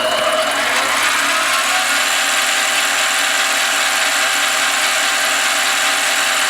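Harbor Freight 7x10 mini lathe running steadily under power feed with the half nut engaged: a motor and gear-train whine with several steady tones. The cutting tool is not yet in far enough to cut the aluminum.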